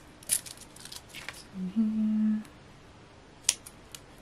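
Scissors snipping through a sheet of foam adhesive pads, a few short cuts, chopping it into smaller pieces. A short hummed 'mm' from a voice comes about halfway, and a sharp click near the end.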